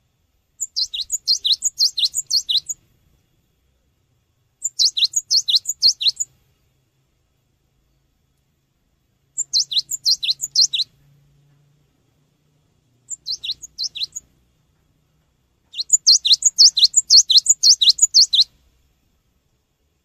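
Cinereous tit (gelatik batu) singing in five bursts of quick, high, repeated notes that each drop in pitch. The bursts last one to three seconds with pauses of a second or two between, and the last is the longest.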